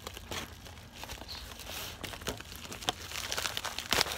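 Plastic poly shipping mailer being torn and pulled open, crinkling and rustling with scattered clicks and one loud crackle near the end. Wind rumbles on the microphone underneath.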